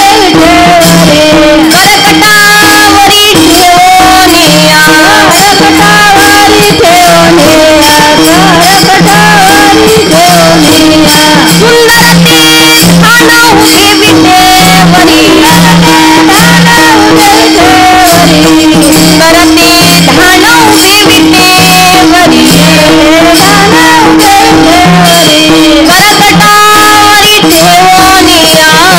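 Marathi kirtan music: a voice carries a bending, ornamented melody over a steady pulsing drone, with jingling percussion keeping a fast, even rhythm.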